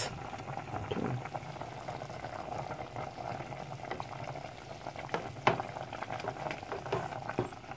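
A pot of pork humba broth bubbling at a simmer while a wooden spatula stirs through the meat and liquid, with a few light knocks against the stainless steel pot.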